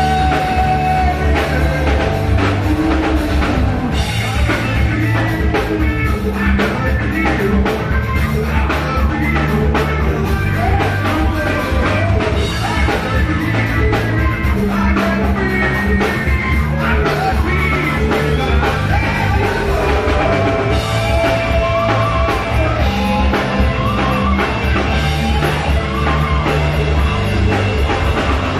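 A rock band playing live and loud: guitars, bass and drum kit, with a voice singing at times.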